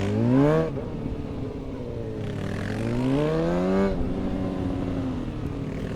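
Suzuki GSX-R 750's inline-four engine revving through a tight motogymkhana course: a quick rise in pitch at the start, then a longer climb that drops off sharply about four seconds in, running lower and steadier after that.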